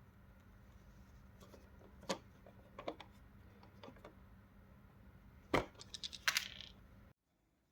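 Scattered light clicks and knocks of small objects being handled, with a quick run of small clicks about six seconds in, over a steady low hum that cuts off abruptly near the end.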